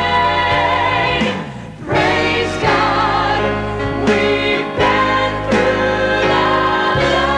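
Gospel singing: voices holding long chords with vibrato over a steady instrumental accompaniment, with a brief dip about one and a half seconds in and a new chord every second or two after.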